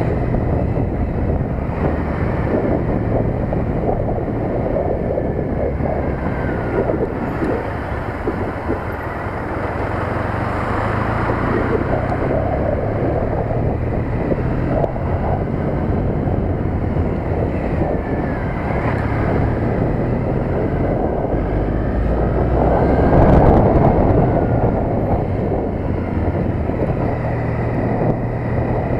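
Triumph Bonneville T100's parallel-twin engine running steadily as the motorcycle rides along, with wind rushing over the microphone. The sound swells briefly about three-quarters of the way through.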